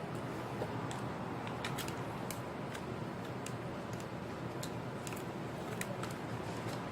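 Small irregular clicks and taps, a dozen or so, from laptop parts and tools being handled during disassembly, over a steady low background hum.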